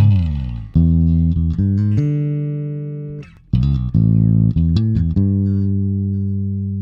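Instrumental music: plucked bass and guitar notes that start sharply and ring out, fading, in short phrases. A swooping effect comes at the very start, and there is a short gap about three and a half seconds in.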